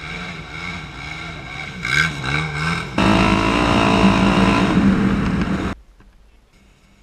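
Sport quad (ATV) engines revving, the pitch rising and falling in short blips. About three seconds in, the sound jumps abruptly to a louder, steady high-revving engine with a rushing noise over it. This cuts off suddenly after almost three seconds, leaving only a faint hum.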